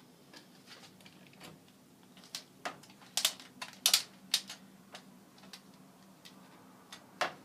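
A string of irregular sharp plastic clicks, a hair dryer's switch being worked, while the dryer stays silent and will not start. It has cut out, which its owner suspects is from overheating.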